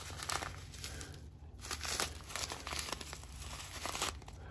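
Plastic baggie of diamond painting drills being handled and crinkled, in irregular bursts of rustling that stop shortly before the end.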